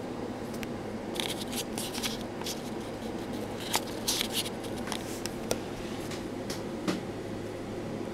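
Old paper coin wrapper crinkling and rustling as fingers handle it, in short crackly spells with a few light ticks, over a steady low hum.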